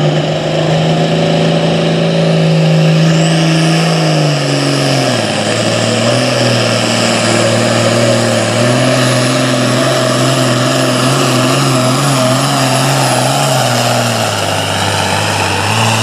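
Super Farm pulling tractor's diesel engine running loud at a steady speed, dropping in pitch about a third of the way in, picking up slightly, dropping again near the end and climbing back up right at the close.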